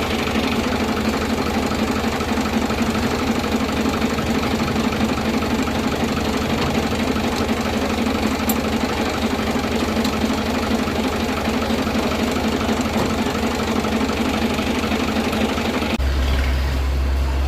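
Tractor engine running steadily. About sixteen seconds in, a deeper, heavier low rumble comes in.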